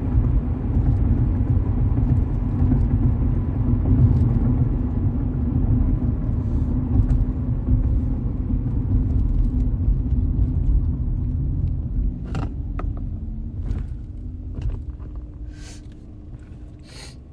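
Car road noise and engine rumble heard from inside the cabin while driving, growing quieter over the last few seconds, with a few light clicks near the end.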